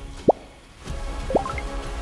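Background music with sustained tones, with two short rising plops like water drops: one just after the start and another past the middle.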